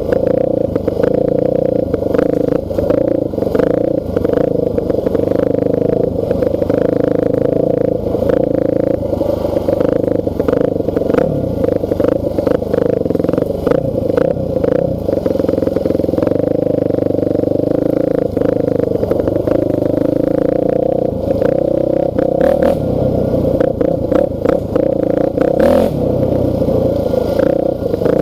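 Honda dirt bike's engine running at a fairly steady speed while the bike is ridden, with many sharp clattering knocks over the engine note.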